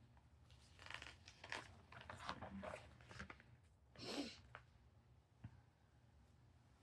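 Faint clicks and rustling of small plastic building pieces being handled, with a brief, louder breathy rush about four seconds in.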